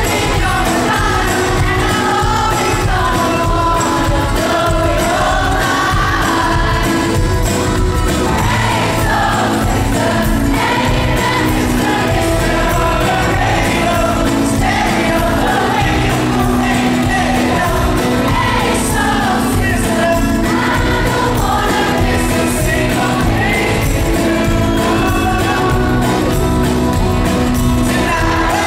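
Live pop-rock band playing, with a male lead vocalist singing over drums and electric guitar.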